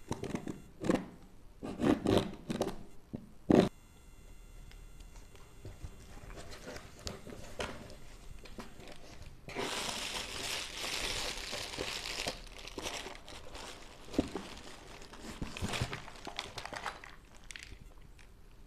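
Knife slitting the packing tape on a cardboard box in several sharp scraping strokes over the first few seconds. Later, plastic air-cushion packing crinkles for a few seconds as it is pressed and pulled, followed by cardboard rustling and light knocks as a boxed item is lifted out.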